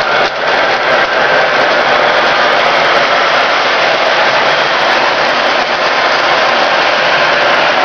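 Several electric model trains running on metal track close by, making a loud, steady rolling and whirring noise from wheels on rail and their motors.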